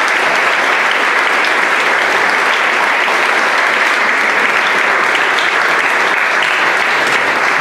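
A large audience applauding, a dense and steady round of clapping.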